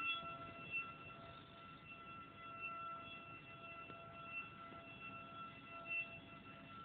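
A steady, high-pitched alarm tone with overtones, held at one pitch without rising or falling, over faint background noise.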